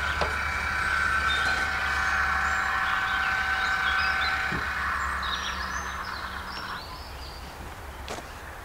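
Small electric motor of a ChickenGuard Premium automatic coop door opener running with a steady whine as it winds the sliding door down on its cord, during calibration of the door's closed position. It stops about seven seconds in, when the door is fully closed and the button is let go.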